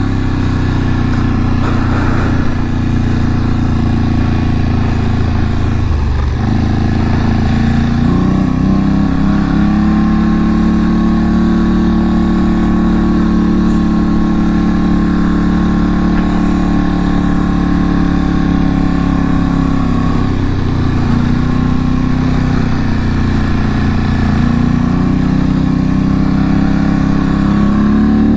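850 cc Polaris ATV engine running steadily under way on a gravel trail, heard from on board. The engine note dips briefly about six seconds in and again around twenty seconds, then picks back up.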